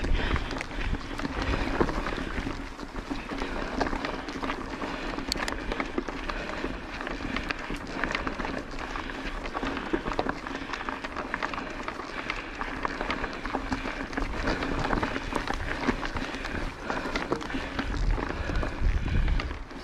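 Orbea Occam mountain bike ridden along a dirt trail: tyres rolling over the ground with many small clicks and rattles from the bike, wind buffeting the microphone, and the rider breathing hard.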